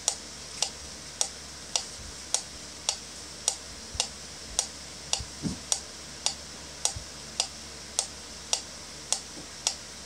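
Wooden pyramid pendulum metronome ticking steadily, about one and three-quarter sharp ticks a second, with fainter ticks between them.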